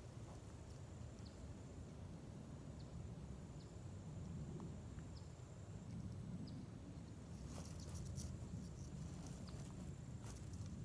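Faint outdoor ambience: a low rumble under scattered short high chirps, with a few clicks or rustles about eight seconds in and again near the end.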